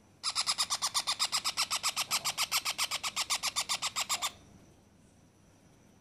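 A 20-day-old parrot chick giving a fast, even run of begging calls, about ten a second, for about four seconds before stopping.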